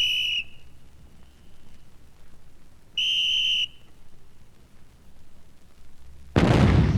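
Two short blasts on a signal whistle, a few seconds apart, then a heavy artillery gun fires near the end with one loud boom that rolls away slowly.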